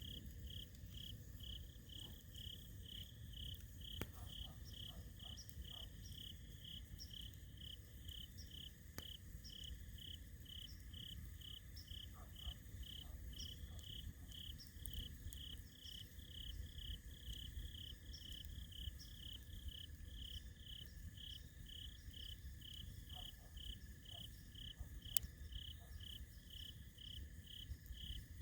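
A cricket chirping steadily, about two high chirps a second. Now and then the campfire gives a sharp pop, over a low, soft background noise.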